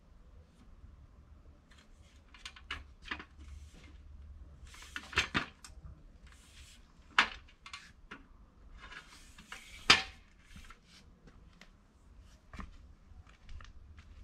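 Irregular clicking and scraping of hard objects being handled, with three louder sharp clacks spread through.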